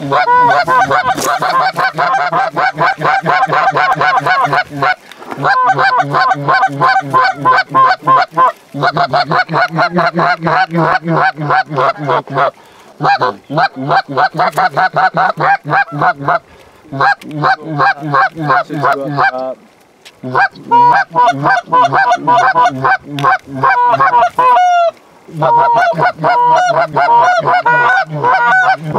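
Canada goose calls blown loud and close by hunters: fast, continuous runs of clucks and honks, broken by short pauses every three to five seconds, calling to geese flying in.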